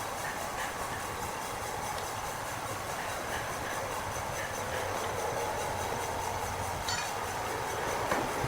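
Steady mechanical rumble and clatter of heavy wood-processing machinery running, with a few faint ticks.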